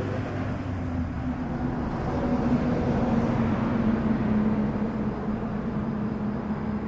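A motor running steadily, a low even hum over a noisy outdoor background.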